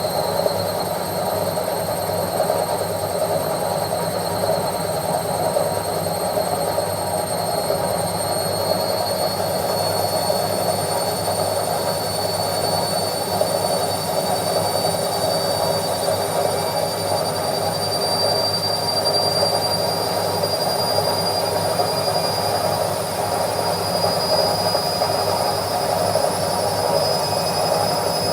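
Washing machine on its spin cycle: the drum spinning with a steady rushing hum, over which a high whine slowly rises in pitch.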